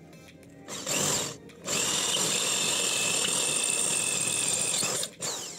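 Handheld electric drill boring a hole through the wall of a round metal tube with a twist bit. A short burst about a second in, a brief pause, then a steady whining run of about three and a half seconds that stops near the end.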